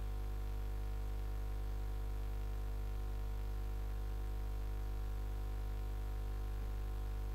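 Steady electrical mains hum: a low buzz with a ladder of steady overtones above it, unchanging, with no other sound.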